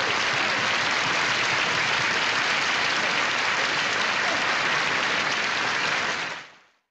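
Large audience applauding steadily. The applause dies away quickly near the end.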